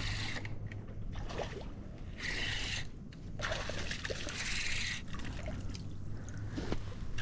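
Water splashing in three short bouts as a hooked jack thrashes at the surface while it is being landed.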